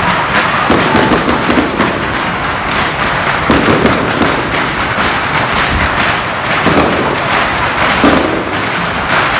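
Firecrackers and fireworks going off in a continuous, dense crackle of rapid pops, with heavier thuds every few seconds.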